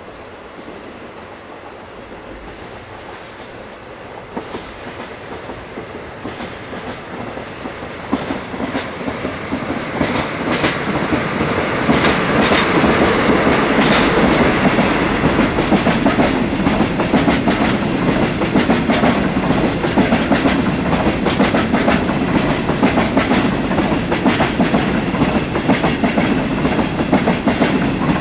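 Freight train approaching and passing close by: two DD51 diesel-hydraulic locomotives growing louder over about the first twelve seconds, then a long string of flatcars loaded with long rails rolling past, the wheels clacking steadily over rail joints.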